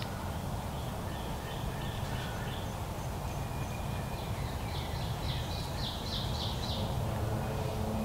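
Wind buffeting the microphone with a steady low rumble, under woodland songbirds. Faint high chirps come early, then a bird sings a quick run of about seven loud high chirps, roughly three a second, just past halfway.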